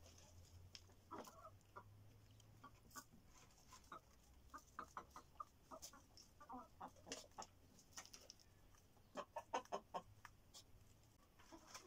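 Chickens clucking faintly off-camera in scattered short calls, with a quick run of clucks about nine seconds in.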